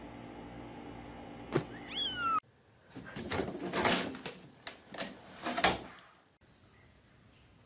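A kitten's short meow about two seconds in. Then, after a cut, a cat scrambling at the rim of a laundry hamper and dropping inside: a few seconds of loud rustling and bumping against the hamper, with the lid knocking shut.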